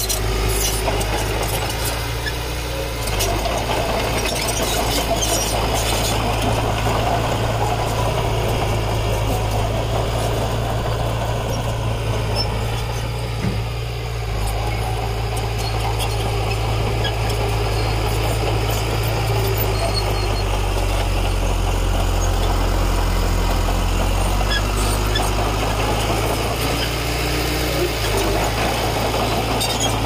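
Diesel engine of heavy earthmoving equipment running continuously with a steady low drone.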